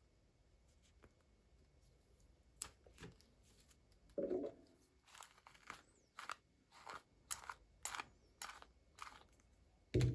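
Toy packaging being handled and opened: a run of short crisp snips and crinkles, about two a second, with a dull knock partway through and a louder one near the end.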